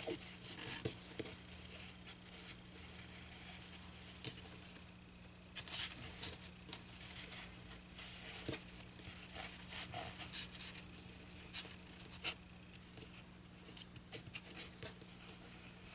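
Fabric rustling and scraping as it is stretched and pinned over a styrofoam block, with irregular small clicks and scratches, the sharpest about six and twelve seconds in. A steady low hum runs underneath.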